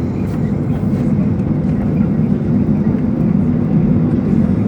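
Steady low rumble of a Boeing 737-800 airliner during taxi, heard as even engine and airflow noise.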